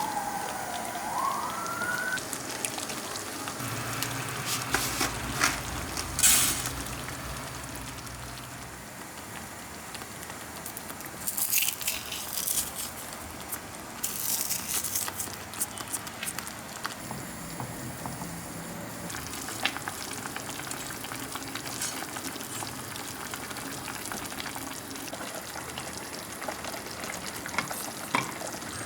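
Kitchen cooking sounds: a steady hiss like food frying in a pan, with scattered clatter and short scraping noises from utensils. In the first two seconds a wailing tone falls, then rises.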